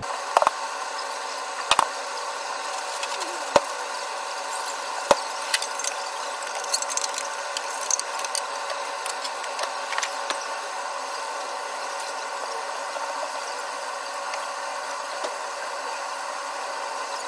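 Food simmering in sauce in a carbon-steel wok over a gas burner, held down by a stainless steel plate: a steady rushing hum under scattered crackling, with a few sharp metal clicks and knocks in the first five seconds.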